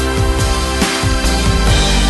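Background music with a steady beat: drums, bass and guitar.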